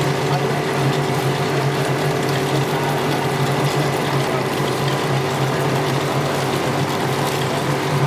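Automatic cheese winders in a plastic twine (sutli) plant, running steadily: a dense mechanical whirring over a constant hum.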